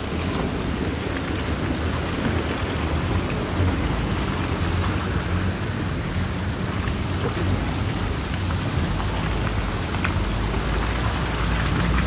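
Steady heavy rain in a thunderstorm, with thunder rumbling overhead.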